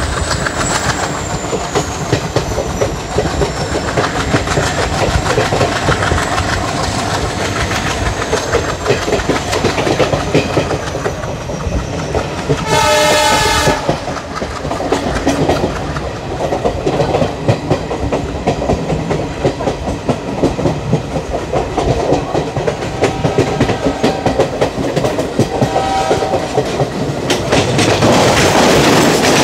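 Train running at speed in ICF coaches, the wheels clicking steadily over the rail joints. About thirteen seconds in, a diesel locomotive's horn sounds once for about a second and a half. The running noise grows louder near the end.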